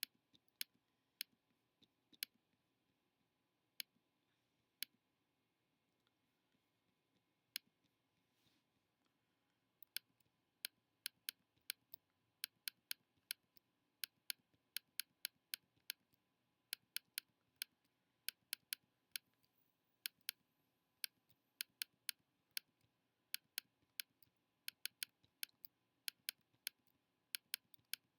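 Computer mouse clicking: a few scattered clicks at first, then from about ten seconds in a quick run of clicks, several a second and often in pairs.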